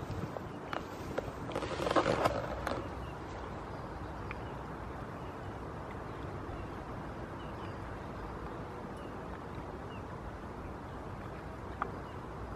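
Pony drinking water from a bucket held out by hand: a short burst of slurping and splashing about two seconds in, then only a steady low rumble of wind on the microphone.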